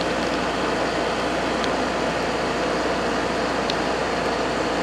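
GE through-the-wall air conditioner running, heard at its outdoor grille: a steady noise with a faint hum in it.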